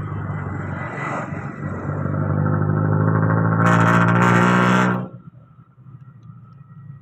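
A small engine running, getting louder over a couple of seconds with a hiss on top at its loudest, then falling away abruptly about five seconds in to a low background hum.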